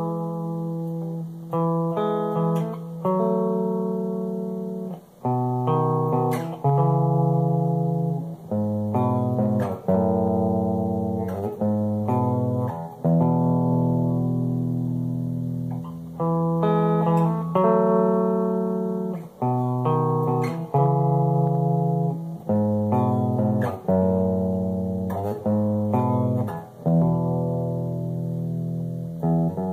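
A solo guitar played with a clean tone: picked chords and single notes that ring and fade, in unhurried phrases with short breaks between them.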